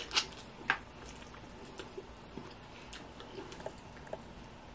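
Close-up wet mouth eating sounds: lip smacks and sucking as crab meat is eaten off the fingers. There are two sharp smacks in the first second, then faint small clicks.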